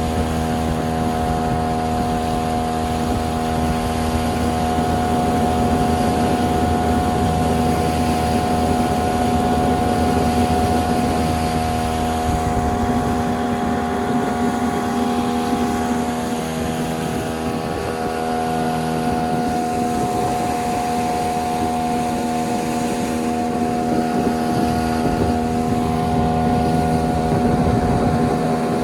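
15-horsepower outboard motor running steadily at speed on a small fibreglass boat, a constant engine note over a rushing hiss of wind and water.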